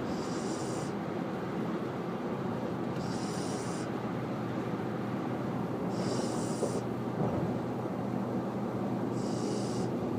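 Husky puppy snoring in its sleep: four breaths about three seconds apart, each with a short high whistling note.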